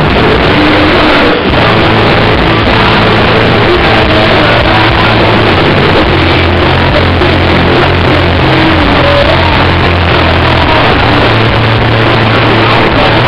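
Live rock band playing loud: electric guitars, bass and drums, with held low bass notes. The recording is overloaded and distorted.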